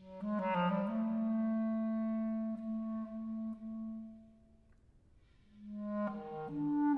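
Solo clarinet playing a quick run of notes that settles into a long held low note, which fades away. After a short pause a new phrase swells in near the end.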